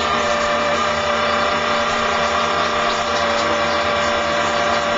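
Electric drive motors of a radio-controlled model tug boat running steadily, a whine with several fixed tones over a steady rush.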